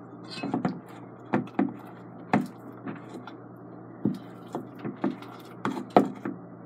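Spoon stirring thick slime in a stainless steel mixing bowl, knocking and scraping against the bowl in irregular clacks about one or two a second, the loudest near the end.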